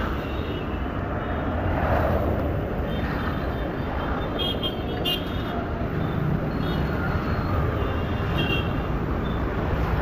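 Steady street traffic noise with a few brief horn toots.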